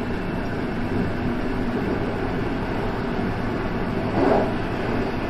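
JR West 223 series electric train running, heard from inside the front of the car: a steady rumble of wheels on rail, with a brief louder noise about four seconds in.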